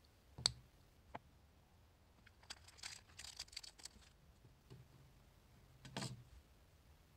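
Small handling clicks and crackles from fitting a rechargeable cell into the plastic battery holder of a water flosser: a sharp click about half a second in and a lighter one a second in, a brief run of small crackling clicks in the middle, and another click near the end.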